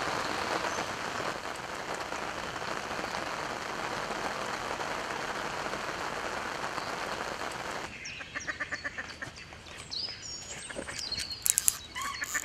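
Heavy rain falling steadily on the lake and the umbrella overhead, a dense even hiss. About eight seconds in it cuts off to calm conditions, with ducks quacking and small birds calling.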